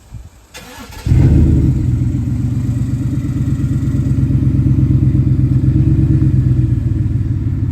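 2018 Ford F-150's 5.0 V8 being started: the starter cranks for about half a second, then the engine fires about a second in and settles into a loud, deep idle. It is breathing through a freshly fitted cat-back exhaust that ends in an open dump under the cab.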